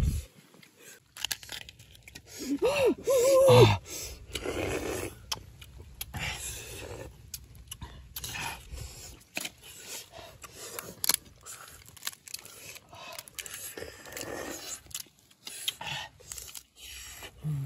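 Cooked crab shells being cracked and pulled apart by hand, with irregular crunching and clicking of shell and chewing. A short vocal sound from one of the eaters, about three seconds in, is the loudest moment.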